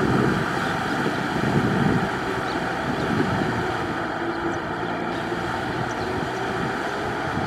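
Tractor engine running steadily while ploughing through deep mud. It is a little louder for the first couple of seconds, then settles slightly quieter.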